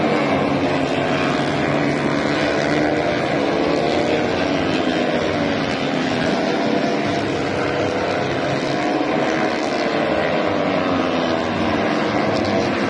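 Racing motorcycle engines at high revs, several bikes overlapping, their pitch sliding up and down as they brake and accelerate through the corners.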